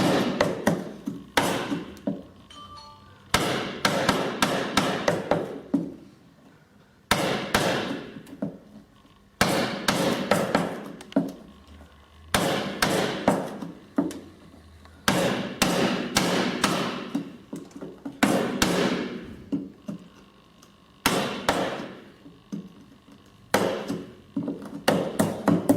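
A hammer striking a chisel, chopping a small mortise hole in hardwood: quick runs of several sharp strikes, repeated about every two to three seconds with short pauses between.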